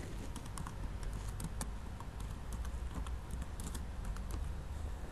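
Computer keyboard being typed on: a run of quick, irregular keystroke clicks over a steady low hum.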